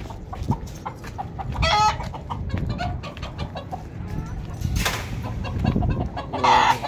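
Domestic chickens clucking, with a short call about two seconds in and a louder squawk near the end.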